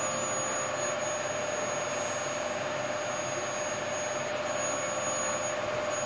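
Vacuum cleaner running steadily: an even drone with a constant whine.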